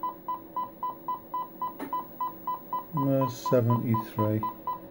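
Steady pulsing beep near 1 kHz, about four beeps a second: the test tone from the signal generator, heard through the Stalker 9 CB radio receiving an S9-level signal. A voice breaks in briefly about three seconds in.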